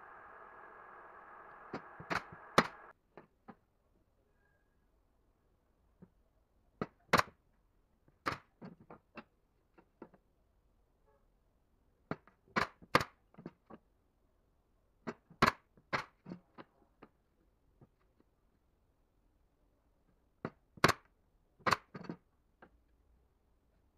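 Sharp wooden clacks and knocks, mostly in pairs a fraction of a second apart and recurring every few seconds, as wooden slats are stacked and fastened onto a crosswise-slatted planter frame. A faint steady hum stops about three seconds in.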